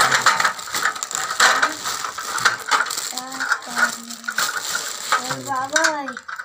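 Thin clear plastic bag crinkling and crackling as it is pulled open and a toy is drawn out of it, with a few short pitched sounds in the middle and near the end.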